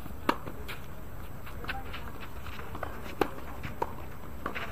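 Tennis rally: sharp racket-on-ball hits, two loud ones about three seconds apart, with fainter hits, ball bounces and footsteps on the court between.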